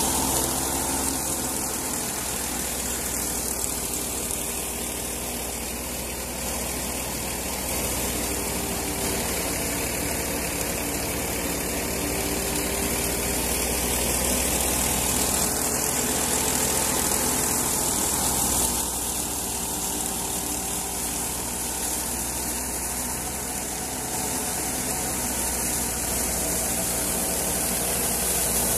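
Tractor-driven wheat thresher running steadily: the tractor engine hums at a constant pitch under load while the threshing drum and belt drive make a continuous rushing hiss.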